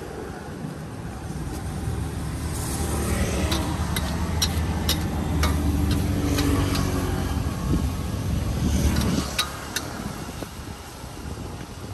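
A motor vehicle passing close by: its engine hum builds over a few seconds and drops away about nine seconds in, with a scatter of sharp clicks over it.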